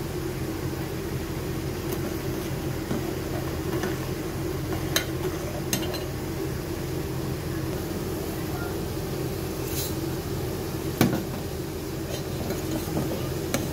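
A steel ladle stirring milk in a stainless steel pan, with a few sharp clinks of metal on metal; the loudest comes near the end. A steady low hum runs underneath.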